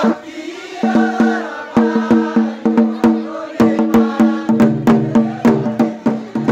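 Folk drumming: a drum is beaten in a quick, steady rhythm of about three to four sharp strokes a second, each stroke ringing with a pitched tone. A deeper drum tone joins about halfway through.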